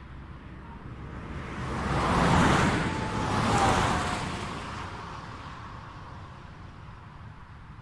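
Highway traffic with vehicles passing close by: tyre and engine noise swells up to two loud peaks about a second apart, then fades slowly back into the distant traffic hum.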